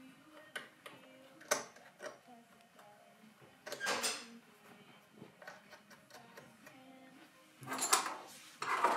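Clicks and short scrapes of small metal and plastic parts being handled as the throttle cable is worked free of the carburettor of a four-stroke engine, with a longer scrape about four seconds in and a cluster of clicks near the end.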